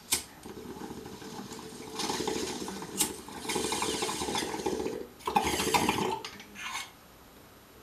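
A click, then a water bong bubbling as smoke is drawn through it, in a few long pulls with a short break about five seconds in, stopping near the end.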